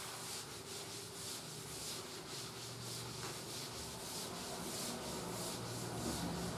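Cloth wiping chalk off a chalkboard in repeated back-and-forth strokes, a rubbing swish at about two or three strokes a second.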